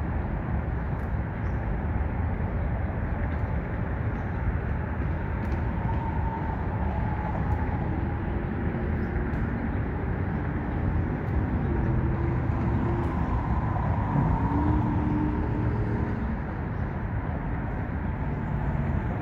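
Steady low rumble of road traffic on the elevated roadway overhead, with faint tones of passing vehicles drifting up and down in pitch.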